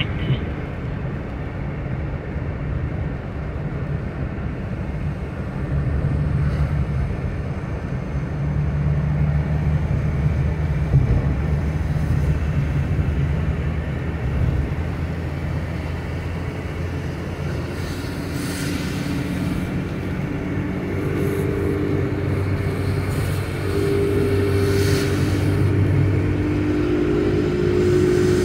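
Road noise inside a car driving on a wet highway: a steady low engine and tyre drone with a hiss of wet tarmac, swelling in a couple of brief hissing surges in the second half.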